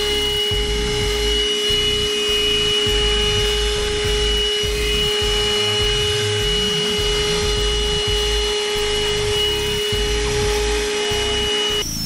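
Handheld car vacuum cleaner running with a steady high motor whine and an uneven low rumble as the nozzle is worked over a ribbed rubber floor mat. The whine cuts off suddenly just before the end.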